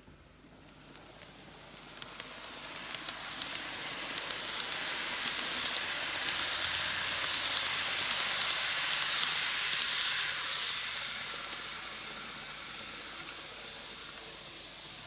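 N gauge model of a Keikyu New 1000 series electric train running past on TOMIX superelevated track: a hissing rattle of its wheels and motor on the rails with a run of sharp clicks. It grows as the cars come close, is loudest in the middle, then fades as the train moves away.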